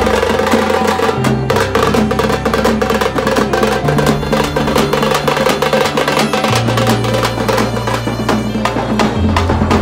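Loud music with fast, busy drumming and a deep bass line that steps to a new note every couple of seconds.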